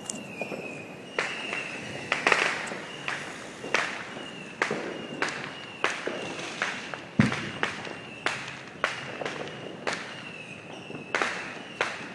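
Fireworks going off across the neighbourhood: a rapid, irregular string of bangs and pops, about two a second, some close together, each trailing off in a short echo. A faint high steady tone comes and goes behind them.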